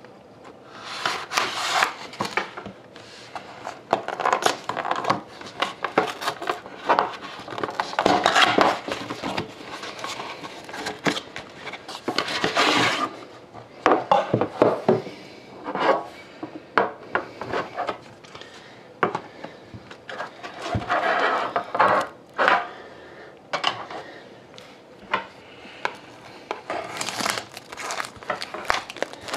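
Hands handling a metal hockey-card tin: a cardboard sleeve sliding off it, the tin scraping and knocking on a tabletop, and near the end a fingernail picking at its plastic shrink-wrap. Irregular rubbing and rustling with scattered clicks.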